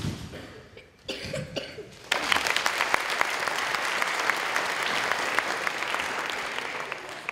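Audience applause breaks out about two seconds in and carries on, easing off slightly near the end.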